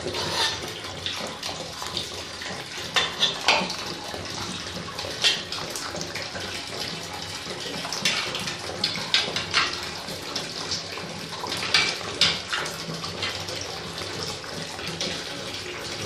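Water pouring steadily out of an electric water heater's open drain passage and splashing below, with irregular louder splatters. The tank is draining freely now that the opened inlet safety valve lets air in and breaks the vacuum that held the water back.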